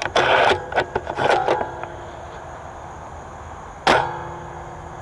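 Rustling and scraping for the first two seconds as the scoped rifle is moved through brush, then a single sharp shot from an airsoft sniper rifle about four seconds in, with a short ringing tail.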